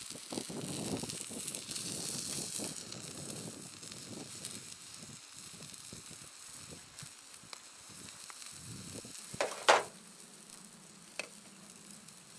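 Egg sizzling on the hot steel top of a folding Firebox stove, with a metal spatula scraping under it. The sizzle fades as it goes on, and there is one brief, louder scrape about ten seconds in.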